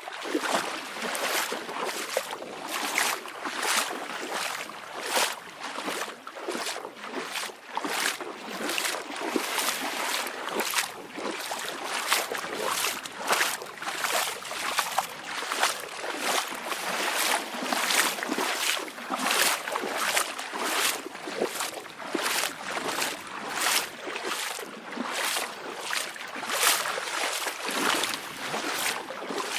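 Small waves lapping and splashing at the water's edge in quick, irregular splashes, a couple or more a second, with no deep surf rumble.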